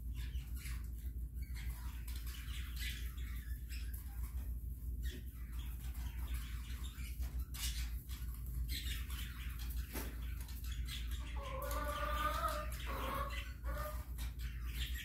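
Chickens pecking and scratching in wood shavings, with scattered soft ticks and rustles over a steady low hum. About twelve seconds in, a chicken gives a short run of low clucking calls.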